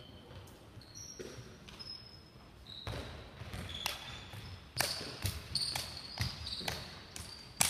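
Sneakers squeaking and feet landing on a sports hall floor as a person hops through a line of floor rings. The landings are sharp thuds coming about twice a second from around the middle, with short high squeaks in between.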